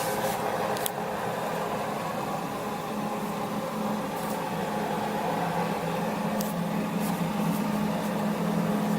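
A steady low machine hum with a faint hiss, like a running household appliance, broken only by a few faint clicks.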